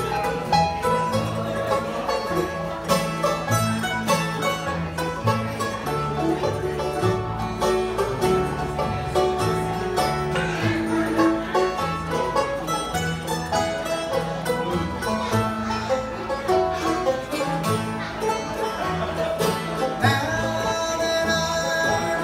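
Bluegrass band playing live: banjo, mandolin and acoustic guitar picking over an upright bass line, steady and unbroken.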